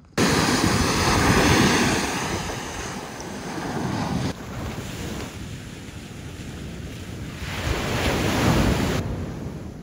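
Ocean surf breaking and washing up a sand beach, with wind buffeting the microphone. The waves swell loudest near the start and again about eight seconds in.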